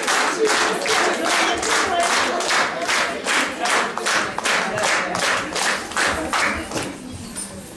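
Audience hand-clapping together in a steady rhythm, about three claps a second, dying away near the end.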